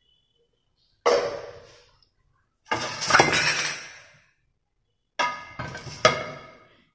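Cookware clinking and clattering in three bursts of sharp knocks, each ringing briefly.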